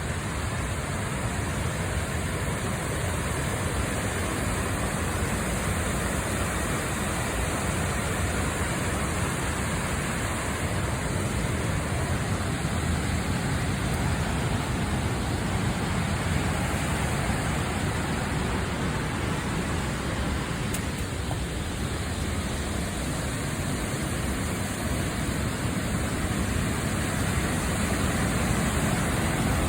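Sandan Falls, a three-tiered waterfall, rushing with a steady, unbroken sound of falling water.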